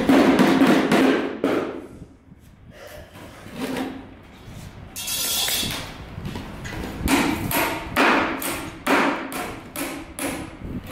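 Hammer driving a nail into a plywood shuttering board: a few sharp blows at the start, then a pause, and a run of about ten more sharp knocks later on.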